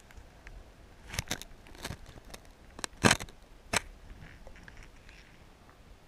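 A handful of sharp clicks and knocks, the loudest about three seconds in, picked up by an action camera held under shallow sea water: handling noise from the camera and its housing being moved among the rocks.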